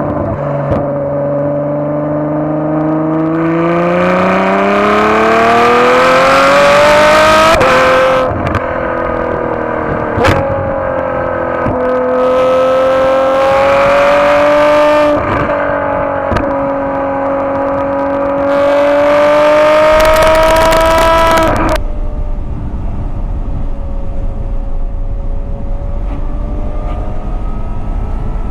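Ferrari F12 Berlinetta's naturally aspirated V12 heard at the exhaust tips with its exhaust valves held open, accelerating hard. The pitch climbs, drops sharply at a gear change about eight seconds in, then climbs again. A little over twenty seconds in it falls abruptly to a quieter, steady drone.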